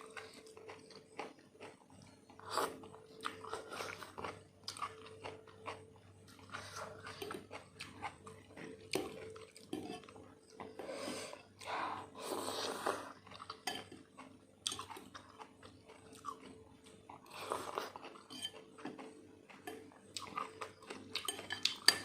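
Close-miked chewing of a spicy seblak soup, with irregular small clicks of a spoon against the bowl.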